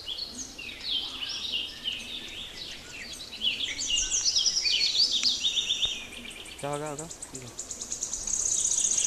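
Birds chirping and trilling in quick high notes, with a fast buzzing insect-like trill near the end and a short low call about seven seconds in.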